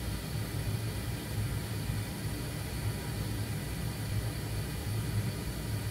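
Steady low hum with an even airy hiss: a fan or blower running continuously.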